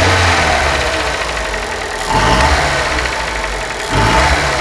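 Chevrolet Celta's four-cylinder Flex Power engine running and blipped up in revs three times: at the start, about two seconds in and near the end. Under it a steady knock from inside the engine, which the mechanic calls typical of a loose piston pin or piston skirt from worn or overheated pistons, not the camshaft.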